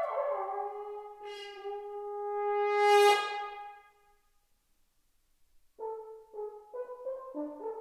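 Solo French horn: a held note swells to a loud peak about three seconds in and breaks off, the hall's reverberation dying away. After about two seconds of near silence, a run of quick, short notes jumping in pitch begins.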